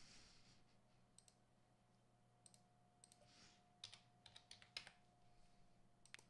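Faint computer keyboard keystrokes and clicks: a few scattered clicks, then a quick run of keystrokes about four seconds in, as a value is typed in.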